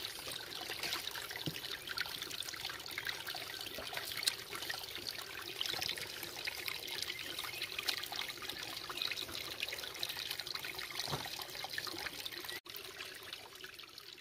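Water trickling and splashing steadily. It cuts out for an instant near the end, then carries on more faintly.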